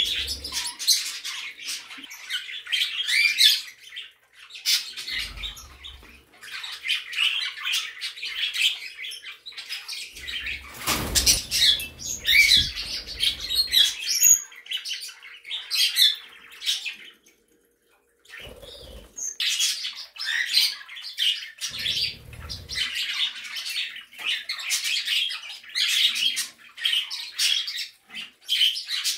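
A roomful of small pet birds (budgies, cockatiels, canaries and other small parakeets) chirping and chattering all at once. A few low thuds are mixed in, the loudest about a third of the way through, and the sound drops out for a moment a little past halfway.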